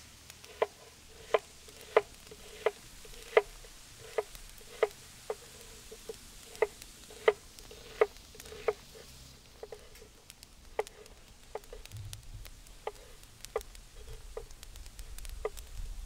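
Knife chopping on a wooden cutting board: sharp knocks, about three every two seconds. After about nine seconds they turn fainter and irregular, over a low rumble that builds near the end.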